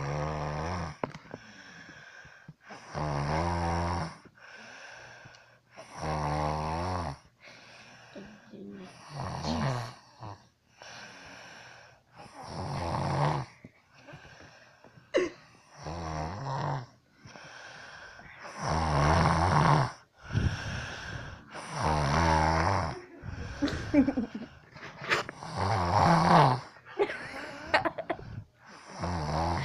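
A person snoring in sleep: a loud, buzzing snore roughly every three seconds, with softer breaths between them.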